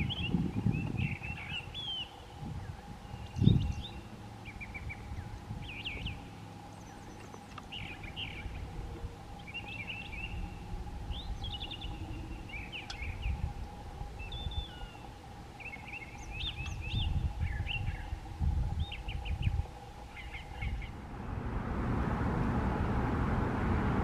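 A brown thrasher singing: a long run of short, varied phrases, some given twice, with brief gaps between. There is a low thump about three and a half seconds in. Near the end the song gives way to a steady rushing noise.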